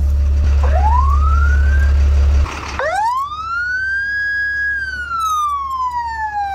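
Electronic police siren worked from a Touchmaster Unitrol siren controller: a short rising whoop about half a second in, then a full wail that rises, holds briefly at its top pitch and slowly falls. A loud steady low hum lies underneath for the first two and a half seconds and cuts off suddenly.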